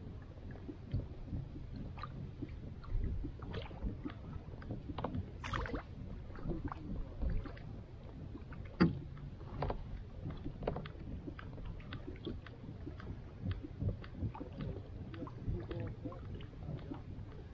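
Low rumble of water and wind around a kayak, with scattered small clicks and knocks as a hooked fish is reeled in on a trolling rod; one sharper click stands out about nine seconds in.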